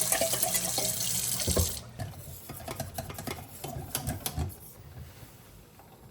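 Kitchen tap running cold water for a cornstarch slurry, shut off abruptly about two seconds in, followed by a few light clinks and knocks.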